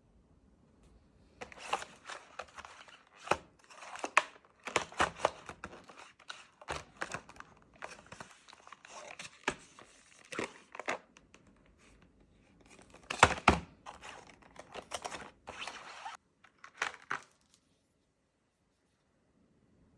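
Irregular rustling and crinkling, like paper or plastic being handled and torn, broken by a few sharp clicks.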